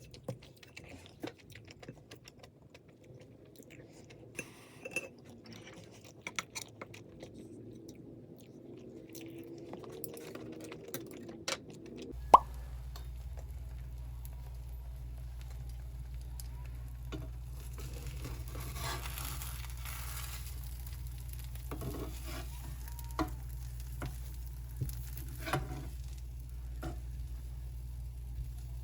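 Kitchen cooking sounds: scattered clicks and knocks of utensils against dishes and cookware. A sharp knock comes about twelve seconds in, after which a steady low hum runs under the clicks.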